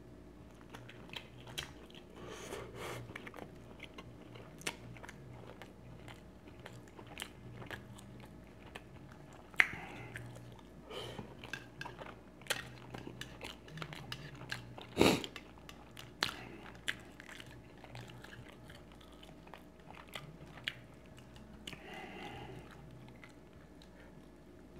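Close-miked chewing and biting of food, with many wet mouth clicks and two louder sharp snaps about ten seconds in and again about five seconds later.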